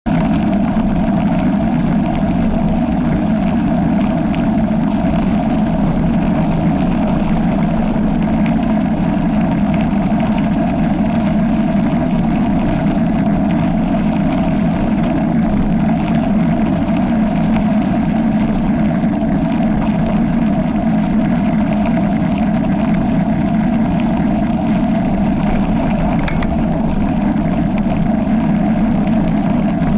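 Steady, unbroken riding noise from a rigid early-1990s Marin mountain bike rolling along a trail, the tyres' rolling noise and the rush of air, picked up by a camera riding along on the bike.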